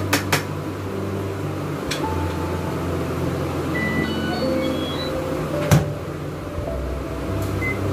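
Samsung microwave oven running with a steady low hum while it roasts fish, under light background music. A single sharp click sounds about six seconds in.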